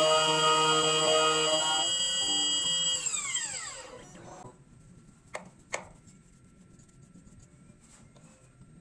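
2M2 Tank key cutting machine's spindle whining at speed as its cutter mills an HU66 key blank, then spinning down with a falling whine about three seconds in. Two sharp clicks follow a couple of seconds later.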